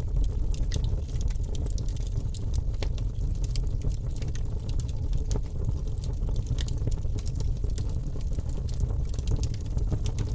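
Rain falling, with irregular sharp drips of raindrops over a steady low rumble.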